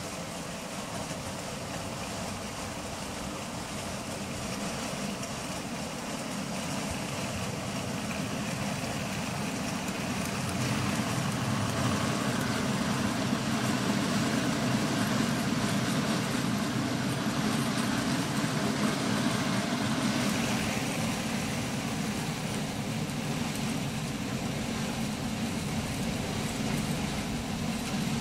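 A model steam locomotive hauling a long rake of hopper wagons running along model railway track: a steady running noise. It grows louder as the train approaches, is loudest from about a third of the way in to about two thirds, then eases slightly.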